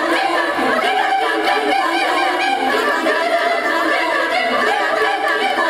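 A girls' choir singing unaccompanied, several voices sustaining and moving between notes together.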